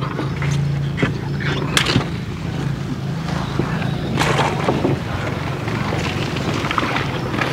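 Wooden paddles stroking through the water of a small paddled boat, with irregular knocks and splashes, over a steady low hum.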